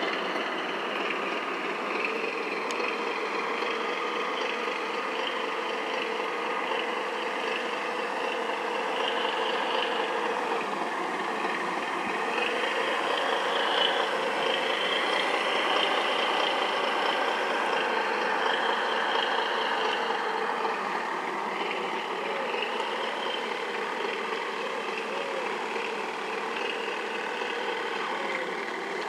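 Radio-controlled model boats' motors running with a steady, engine-like drone, a little louder around the middle.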